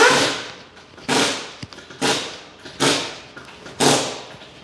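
Pneumatic impact wrench run in five short bursts about one a second, each cutting in sharply with a rattling hiss and tailing off, as the rear wheel or suspension fasteners are worked.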